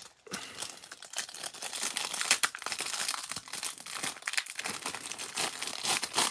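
Clear plastic wrapper of a Panini Absolute football card pack crinkling as it is worked off the stack of cards, a dense crackle that starts about a third of a second in.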